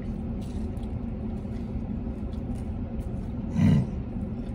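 Steady low rumble of a running car heard inside its cabin, with faint chewing clicks as a man eats a sandwich. About three and a half seconds in there is one short, louder hum-like sound from his voice.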